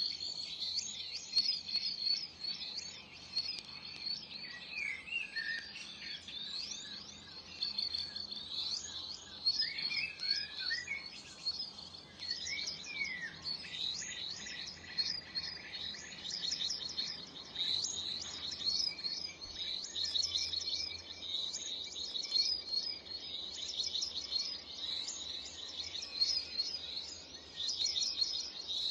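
Many small songbirds chirping and calling together, a dense run of short, high overlapping notes, with a few lower sweeping notes in the first half.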